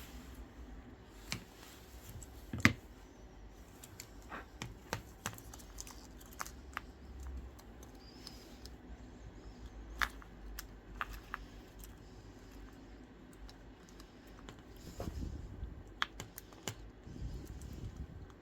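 Irregular small clicks and taps of metal repair tools against phone parts during a smartphone screen replacement, with one sharper click about two and a half seconds in and another about ten seconds in.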